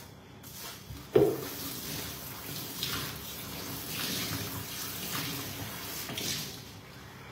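Water running from a kitchen sink tap in a steady stream, with a sharp knock about a second in.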